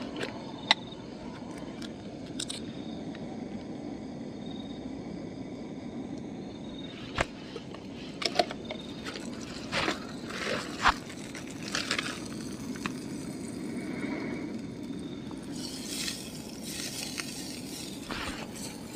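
Cooking-utensil clicks and scrapes against a pan on a portable camp stove, scattered and irregular, over steady background noise.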